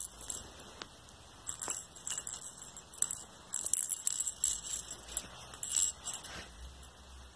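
Light metallic jingling and clicking in irregular clusters, from about a second and a half in until near the end, as the cat moves close to the microphone.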